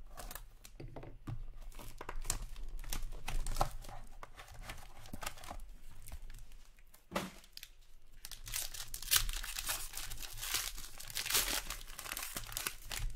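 Foil trading-card pack torn open and its wrapper crinkled by hand. The tearing and crinkling are thickest in the last few seconds, with one sharp knock about seven seconds in.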